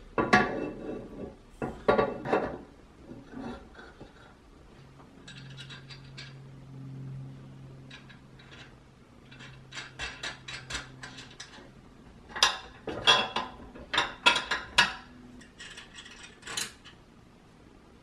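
Steel axle knocking against the metal frame of a DeWalt DW7440RS table saw stand as it is fitted, followed by runs of quick metallic clicks as the carriage bolts, washers and locking nuts that hold it are put on and turned.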